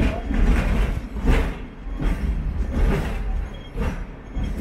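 Hong Kong double-decker tram running along its street track: a steady low rumble of wheels on the rails, with irregular rattling knocks from the car body.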